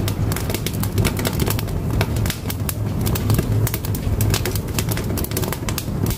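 Firewood burning in a wood-fired cook stove, crackling with dense, irregular pops over a steady low rumble.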